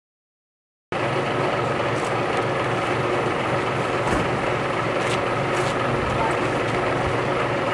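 A vehicle engine running steadily, starting abruptly about a second in, with a few light metal clicks over it from hand tools working a septic tank lid.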